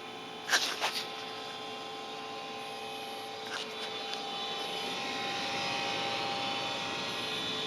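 Trane XR80 gas furnace running with a steady, fairly loud metallic whirring hum made of several steady tones, growing slightly louder; a few quick knocks sound about half a second in and one more about three and a half seconds in. The noise is new on a furnace about fifteen years old, and the owner suspects the blower motor or its capacitor.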